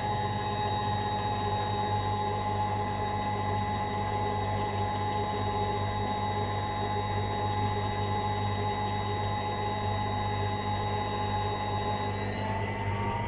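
AEG Lavamat L 1049 washing machine spinning fast: a steady motor hum with a high whine. Near the end the whine starts rising as it speeds up further. This machine throws its drive belt at high spin speeds.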